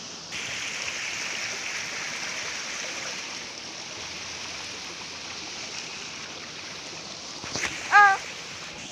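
Steady rush of a small stream's running water, a little louder in the first few seconds. Near the end a brief pitched call cuts in, the loudest sound.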